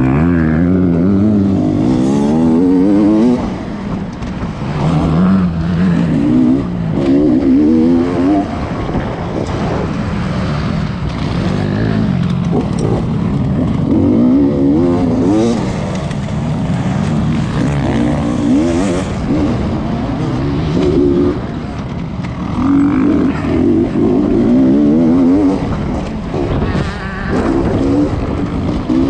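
Beta 300RR's two-stroke single-cylinder engine heard from on the bike, revving up and down again and again as the throttle is opened and closed through the turns and straights of a motocross track, with short drops in revs off the throttle.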